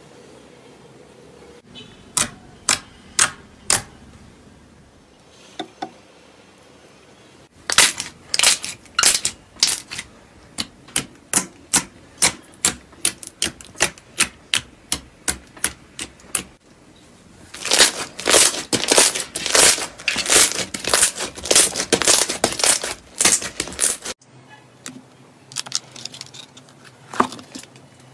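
Fingers poking and pressing into thick slime, each press giving a sharp, sticky pop. The pops come at about two a second, then crowd into a dense crackle, stop suddenly, and return as a few scattered pops near the end.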